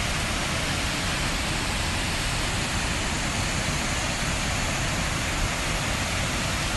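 Brown flash-flood water pouring over rock ledges and rushing down a gorge: a steady, unbroken rush of falling and churning water.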